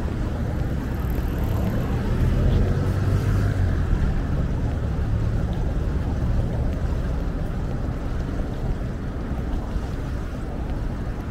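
Busy city street ambience: a steady low rumble of traffic, with no clear individual events.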